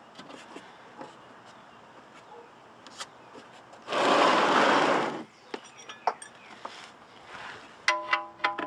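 Small metallic clicks and scrapes as a drain plug is threaded back into an oil pan by hand. About four seconds in comes a loud rushing hiss lasting just over a second, and near the end there are a few clinks with a brief metallic ringing.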